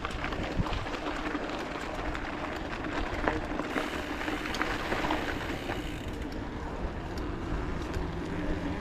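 Mountain bike riding over a dirt trail: steady rolling and rushing noise with scattered small clicks and rattles from the bike.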